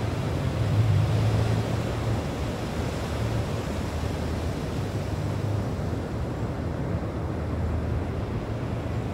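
Wind rumbling on the phone's microphone over sea surf washing on the rocks, with a stronger gust about a second in.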